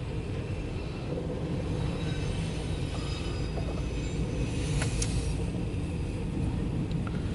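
Loaded autorack freight cars rolling past on the rails: a steady rumble with faint high squeals from the wheels and a sharp click about five seconds in.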